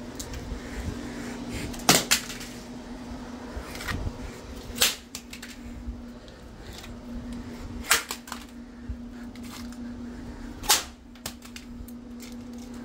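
An LG Nexus smartphone dropped again and again onto a hard surface, landing with four sharp clattering impacts about three seconds apart, some followed by a quick bounce. A steady low hum sounds underneath.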